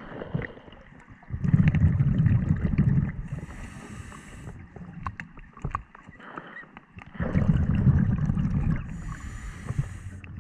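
Scuba diver breathing through a regulator underwater: twice, a burst of exhaled bubbles rumbling out, each followed by the hiss of an inhalation.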